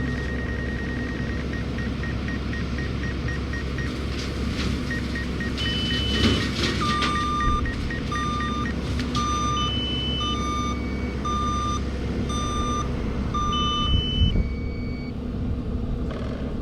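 Drone warning beeps: a high tone that turns into rapid short beeps, then longer, lower beeps about once a second mixed with higher beeps, over a steady low engine hum.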